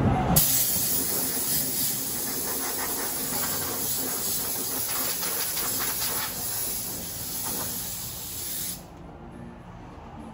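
Hand-held spray gun on a hose spraying in a steady, loud hiss. It starts about half a second in and cuts off suddenly about a second and a half before the end.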